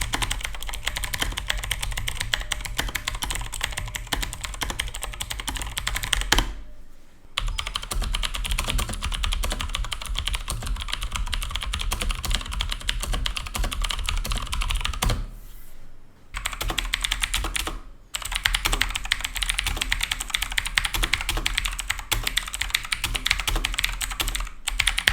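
Fast typing on clicky blue-switch mechanical keyboards, a sound test of Outemu Blue switches (Marvo KG909 and Redragon Aryaman) against the Marvo KG901's Content blue switches. It plays as three runs of rapid key clicks, with short pauses about six seconds in and again about fifteen seconds in.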